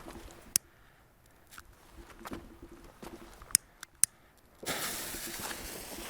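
A few sharp clicks, then a steady hiss that starts abruptly about three-quarters of the way through: a small firework hissing as it burns.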